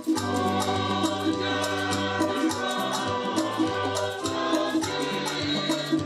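Church music: a choir singing over held keyboard chords and a bass line, with a rattle shaken in a steady rhythm. The bass moves to a new note about four seconds in.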